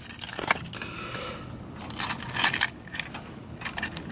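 Light metallic clinks and rattles of Bolt Lock hitch receiver locks and their wire hangers being handled and hung on a truck hitch, with a few sharp clicks about half a second in and again around the middle.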